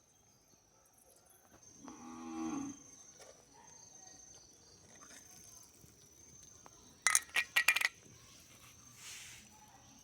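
A quick run of five or six sharp clinks about seven seconds in, from small cooking utensils knocking against a miniature pot. Earlier, about two seconds in, there is one short pitched call, and a faint steady high whine runs underneath.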